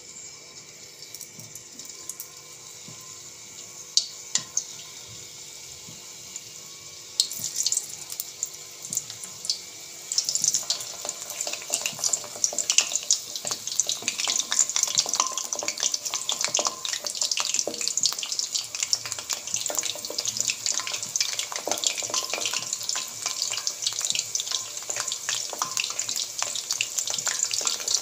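Hot oil in a kadai sizzling and crackling as potato slices stuffed with chicken go in one at a time, with a few sharp clicks about four seconds in. The frying sound thickens and grows louder around seven seconds in and again after ten.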